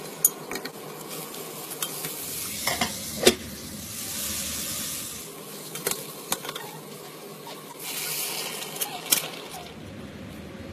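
Diced onion, carrot and potato sizzling in a pot as a wooden spoon stirs them, with sharp knocks of the spoon against the pot. The sizzle swells twice, about two seconds in and again near eight seconds.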